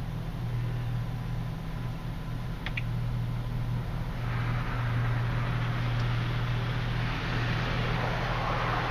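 Ryko SoftGloss XS 2 soft-cloth car wash heard from inside the vehicle cabin: a steady low hum, then about four seconds in a hiss of water and foam spraying onto the windshield starts and grows louder as the wash material covers the glass. A single click comes a little before that.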